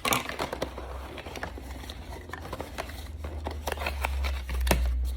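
A product box and its packaging handled and opened by hand: scattered small clicks and crinkles, over a low rumble of handling noise that grows louder in the second half.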